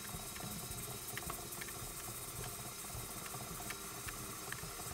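KitchenAid stand mixer running steadily on low speed, its paddle attachment creaming butter and sugar in the bowl, with light regular ticks a few times a second.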